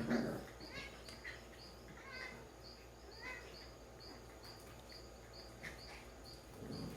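Puppy and kitten play-fighting: scuffling and small knocks, loudest right at the start and again near the end. Under it runs a faint high chirp, repeating evenly a little over twice a second.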